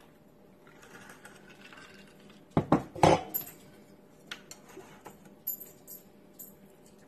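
A few loud clatters of tableware about two and a half seconds in, then light, scattered clinks of a metal knife and fork against a plate as food is cut.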